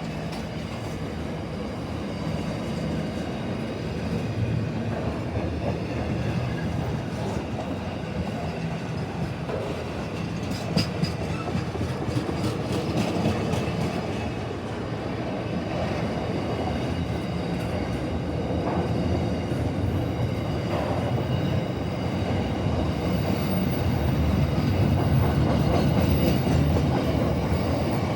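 Train running past on the tracks, a steady rumble of wheels on rail with a cluster of sharp clicks about eleven seconds in, growing a little louder near the end.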